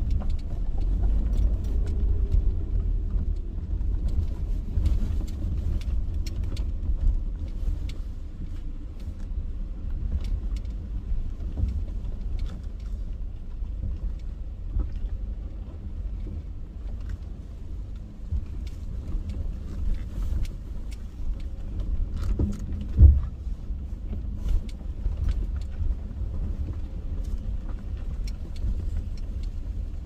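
Subaru Outback being driven slowly along a rough dirt track. A steady low rumble runs under many small rattles and clicks, with one louder jolt about three quarters of the way through.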